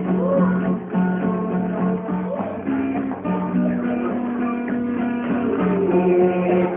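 Acoustic guitar strumming chords as an instrumental lead-in, before the singing of a Christmas song begins.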